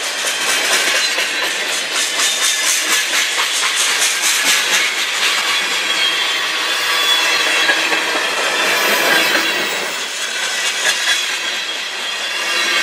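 Freight train cars rolling past close by, their steel wheels clicking rapidly over rail joints over a steady rolling rush of noise.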